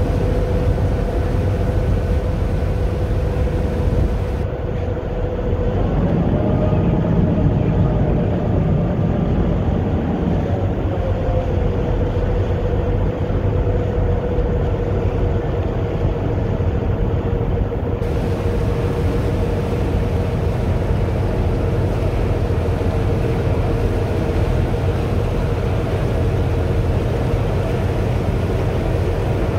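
Passenger ferry's engine running at cruising speed: a steady low drone with a constant hum whose pitch wavers briefly a few seconds in. Rushing water from the wake and wind noise run underneath.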